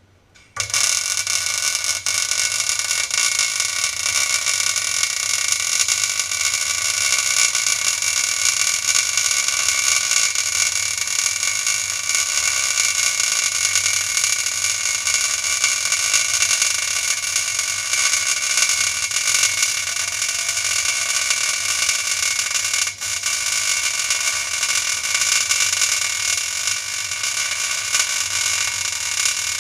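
Plasma cutter arc running: a loud, steady hiss with high whining tones. It starts about half a second in and dips briefly about two-thirds of the way through.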